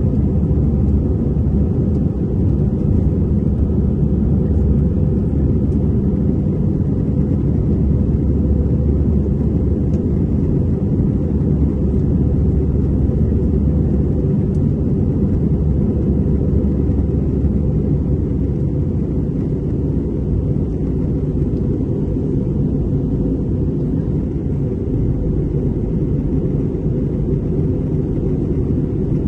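Steady low rumble of an Airbus A320's jet engines and airflow, heard from inside the passenger cabin.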